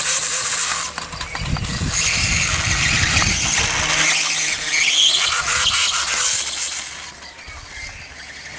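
RC dirt bike running: its motor whines and its tyres scrabble on the ground, loud for about seven seconds and then fading as it moves off.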